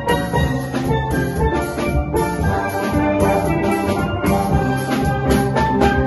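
Steel band playing a Christmas medley: ringing steel pan melody and chords over a drum kit keeping a steady beat with cymbals.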